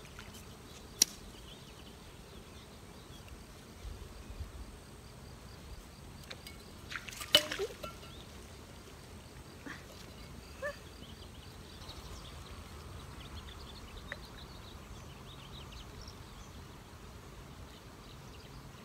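Quiet outdoor background with faint bird chirps. A single sharp click comes about a second in, and a louder cluster of knocks and rustling comes about seven seconds in.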